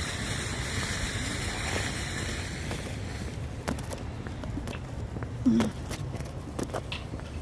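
Steady rushing road and wind noise of a moving car that dies away about three seconds in, followed by scattered sharp clicks and knocks, with one brief low sound midway through the quieter part.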